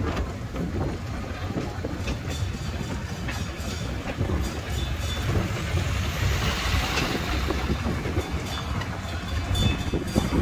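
Steady low rumble of a tourist road train moving along a paved promenade, heard from inside one of its open carriages, with a few light clicks and rattles from the carriages.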